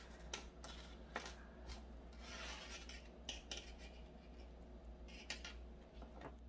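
Faint handling noise of gloved hands working a fishing rig on a tabletop: scattered light clicks of hooks, line and small plastic tackle parts, with a soft stretch of rubbing about two to three seconds in.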